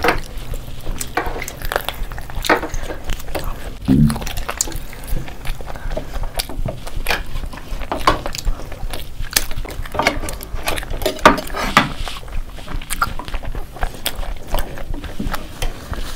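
Close-up eating sounds: irregular wet chewing, lip smacks and mouth clicks from people eating chicken lollipops and rice with their hands. There is a brief low hum of a voice about four seconds in.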